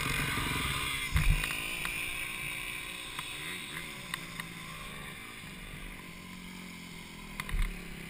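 A motorcycle engine running at low speed, its pitch falling and rising as the bike is ridden slowly and turned. There are two short low thumps, about a second in and near the end.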